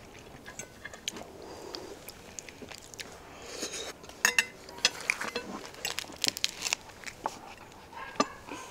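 Eating at a table: forks clicking and scraping on plates, with crunchy biting and chewing, heard as scattered sharp clicks.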